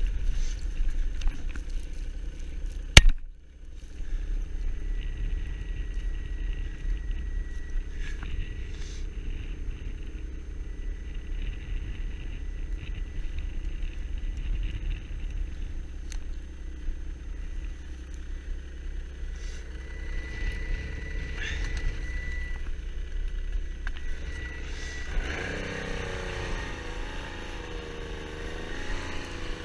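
Snowmobile engine running steadily with a low rumble. There is one sharp, loud bang about three seconds in, and the engine note rises and wavers near the end.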